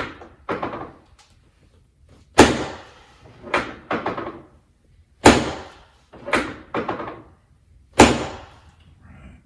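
Chiropractic drop table: its spring-loaded drop section slamming down under the chiropractor's thrusts, three loud thuds about three seconds apart, the last the loudest, with lighter knocks in between.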